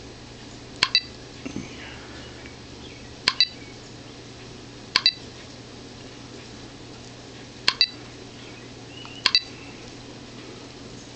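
Truck GPS touchscreen giving short double click-beeps as its menu buttons are tapped, five pairs a couple of seconds apart, each a quick bright tick-tick with a ringing high tone.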